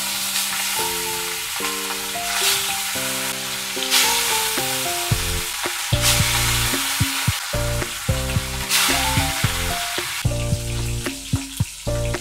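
Marinated rohu fish steaks sizzling in hot mustard oil in a wok, the sizzle flaring up each time another piece is slid into the oil, several times over.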